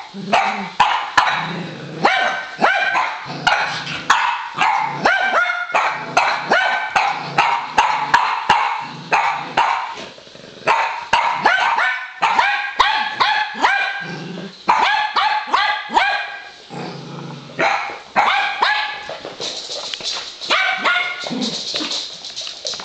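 A Boston terrier puppy and a dachshund barking at each other in play. The barks are short and high-pitched, a few a second, with brief pauses.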